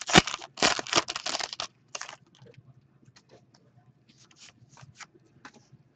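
Crinkling and rustling of sports card pack wrappers and cards being handled, busy for the first second and a half, then a few scattered clicks and rustles.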